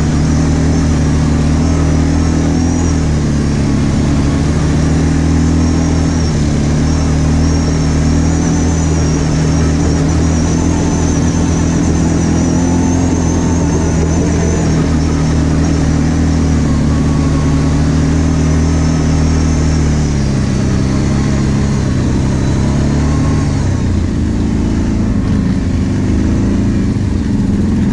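ATV engine running at a steady cruising pace on a dirt track, with a faint high whine above it. About four seconds before the end the revs drop and go uneven as the quad slows.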